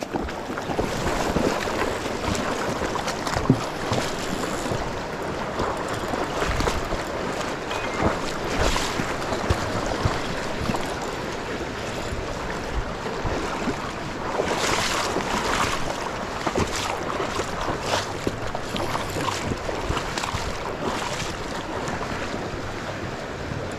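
Steady rush of flowing river current close to the microphone, with a few brief louder surges.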